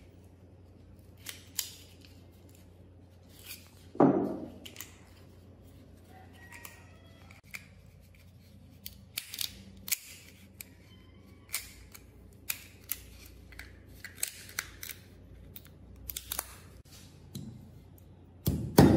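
Light metallic clicks and taps from short steel tube and rod pieces being handled and fitted together, with one heavier knock about four seconds in. Near the end, a hammer starts striking a steel tube laid on a rail-section anvil.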